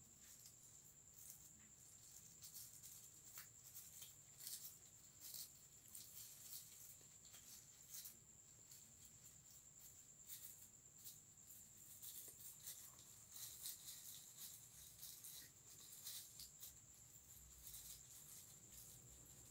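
Near silence: faint rustling and small clicks of hands arranging and pressing handmade roses onto a straw hat, over a steady, faint high-pitched tone.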